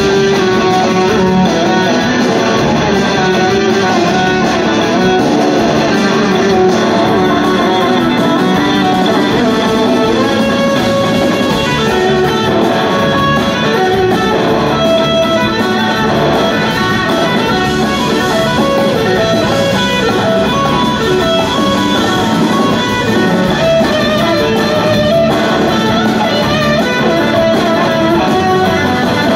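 Live band playing an instrumental jam: an electric guitar leads with sustained melodic lines over organ and drums, heard from the audience in a large hall. Steady and loud throughout.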